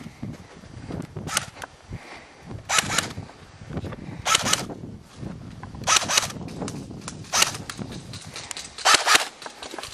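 Airsoft rifle firing about six short bursts of rapid, sharp shots, roughly one burst every second and a half.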